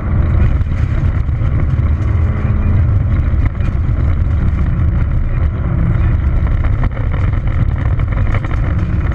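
Peugeot 206 XS rally car heard from inside the cabin at speed on a gravel road: the engine running hard under load over a heavy rumble of tyre and road noise, with scattered clicks of gravel. The level dips briefly about three and a half and seven seconds in.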